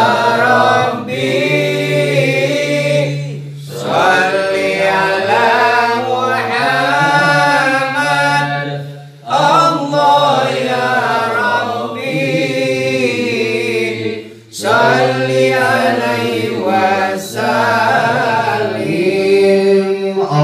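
A group of men chanting Islamic sholawat devotional verses together, unaccompanied, in long phrases broken by short pauses every five seconds or so.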